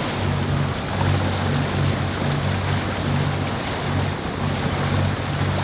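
Boat engine running with a low, pulsing hum, over a steady hiss of wind and water.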